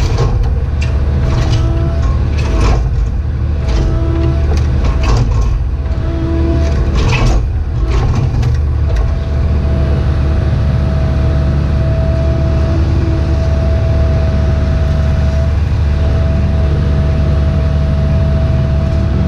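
Cat 304E2 mini excavator heard from inside its cab: the diesel engine runs steadily with a pitched whine that comes and goes as the controls are worked. For the first nine seconds or so, sharp knocks and scrapes come from the bucket digging into stone and dirt. After that the knocks stop and the whine holds steady.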